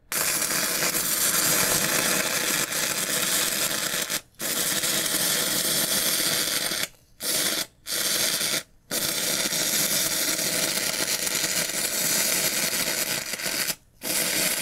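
Stick-welding arc from a battery-powered DC welder (three deep-cycle lead-acid batteries in series, about 36 V) burning a 5/32-inch electrode: a steady crackling hiss. The arc cuts out briefly five times and is struck again each time.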